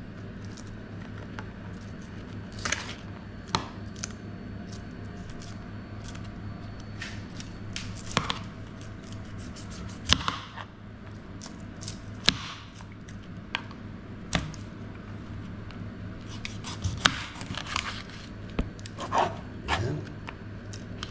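Kitchen knife cutting and scraping through raw mackerel on a plastic cutting board, with irregular sharp taps and knocks of the blade on the board, the loudest about ten seconds in. A steady low hum runs underneath.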